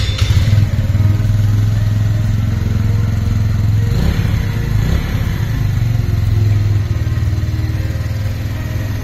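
Keeway SR125's 125cc air-cooled single-cylinder four-stroke engine idling steadily, with a brief blip of the throttle about four seconds in.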